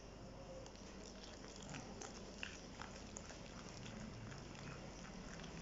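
Whisk beating thick gram-flour batter in a glass bowl: faint wet squelching with scattered light ticks against the bowl, as freshly added water is worked into the batter.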